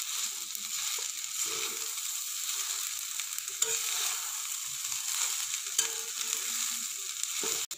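Flat metal spatula stirring and scraping rice in a metal kadai, with a steady frying sizzle underneath, as the masala is mixed through the rice. Small scrapes and clicks of the spatula against the pan now and then.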